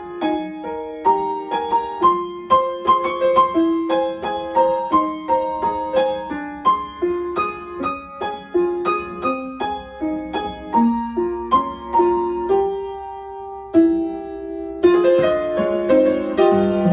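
Solo upright piano playing a fast, busy passage of quick notes over a moving lower line. About twelve seconds in it thins to a few held notes, then comes back louder and fuller near the end.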